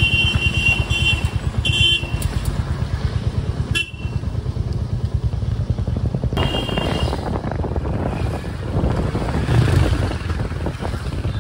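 A vehicle horn beeps four times, the longest for about a second, over motor-vehicle road noise. A rapid low pulsing underlies the first few seconds, then gives way to a rougher rush of road and wind noise.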